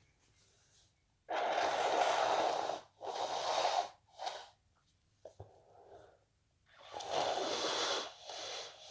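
A person blowing their nose hard, in two rounds: each a long blow of over a second followed by one or two shorter ones.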